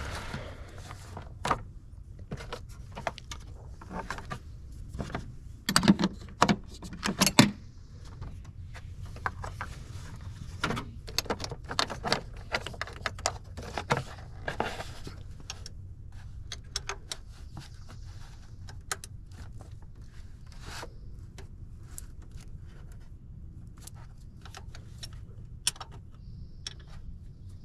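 Metal hand tools clinking and clicking in irregular bursts as a wrench works loose the nut on a starter's wire terminal, with a loud run of clinks about six to seven seconds in, over a steady low hum.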